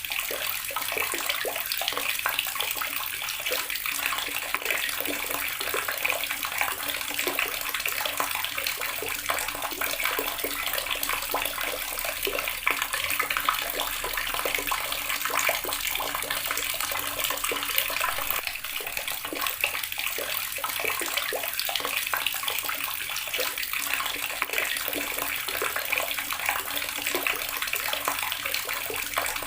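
Water running steadily from a tap and splashing into a basin below, an even rushing spatter that goes on without change.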